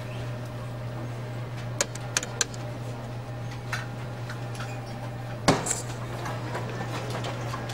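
Office photocopier running with a steady low hum, its mechanism giving a few sharp clicks about two seconds in and one louder clunk about five and a half seconds in.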